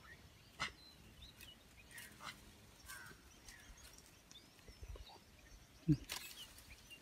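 Quiet outdoor ambience with scattered faint bird chirps and a few light clicks. A short, low, falling thump just before the end is the loudest sound.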